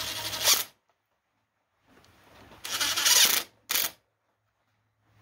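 Cordless impact driver running in short bursts as it tightens the Allen bolts of a motorcycle engine's stator cover: one burst at the start, a second about two and a half seconds in, and a brief third just after it.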